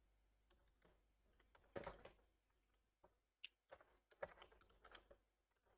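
Near silence with a handful of faint, scattered computer keyboard keystrokes.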